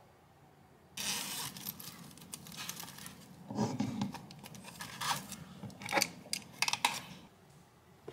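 Rustling and crinkling of a clear plastic pouch being handled and filled with makeup items, with many small clicks and knocks of the cosmetics against each other, starting about a second in.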